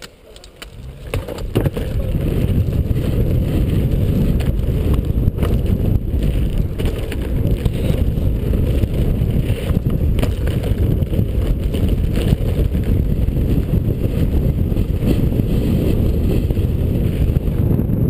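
Wind rushing over a helmet-mounted camera's microphone together with the rumble of mountainboard wheels rolling over grass and dirt at speed. A few knocks come as the board rolls off the wooden start ramp, then the rumble builds over the first couple of seconds and stays steady.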